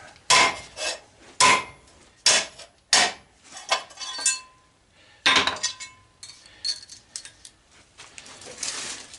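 Hammer blows on the crimped die-cast aluminum of an antenna rotator, knocking out the parts crimped into it: about five heavy metallic strikes, some ringing briefly, with lighter clinks of loose metal pieces between them.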